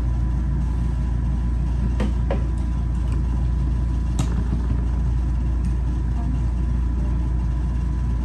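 Steady low hum, with a few light clicks of forks against plates and bowls: two close together about two seconds in and one a couple of seconds later.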